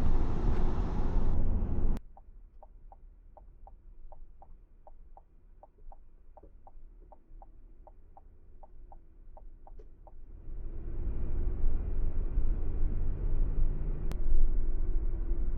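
Car cabin road noise that cuts off abruptly. Then comes a car's turn-signal indicator ticking evenly, about two to three clicks a second, over a quiet idle. About ten seconds in, the ticking stops and road noise builds again as the car drives off.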